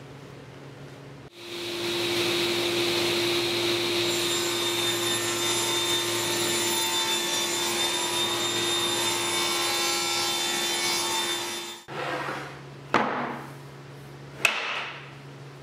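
Table saw with a sliding carriage running and cutting through a thick end-grain hardwood cutting board, a steady whine over cutting noise for about ten seconds. Then the cut halves are handled, with two sharp wooden knocks near the end.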